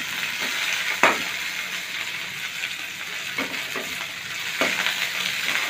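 Garlic cloves, green chillies and chopped coriander sizzling in hot oil in a metal kadhai, with a steel spoon scraping against the pan a few times as they are stirred.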